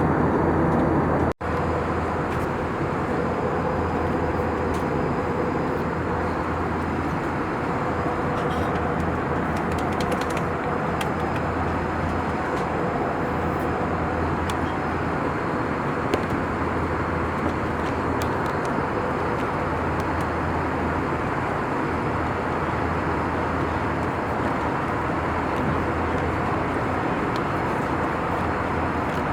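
Steady cabin noise of an Airbus A321 airliner in flight: a constant roar of airflow and engines with a low hum underneath. A very brief break in the sound comes about a second and a half in.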